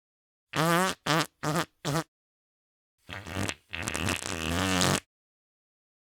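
Fart sound effects. A quick run of four short pitched toots comes first, and about a second later a short blurt runs into a longer fart of nearly two seconds with a wavering pitch.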